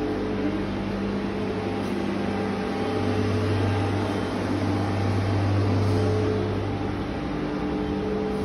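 Steady mechanical hum from a running machine, with a low drone that swells for a few seconds in the middle.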